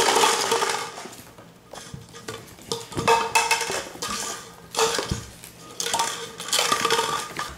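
Light plastic cups clattering and tumbling on a hardwood floor as ferrets knock them over, in repeated bursts of rattling clatter.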